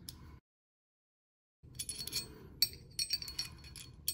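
Small metal lock and handle parts clicking and clinking as a cylinder lock and its tab are worked into a cooler door handle. The sound drops out completely for about a second near the start, then comes back as a string of sharp clicks, the sharpest near the end.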